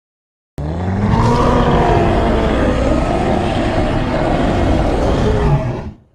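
A long monster roar made of layered animal and movie-creature sound effects. It starts suddenly about half a second in, holds for about five seconds with a wavering pitch, and fades out near the end.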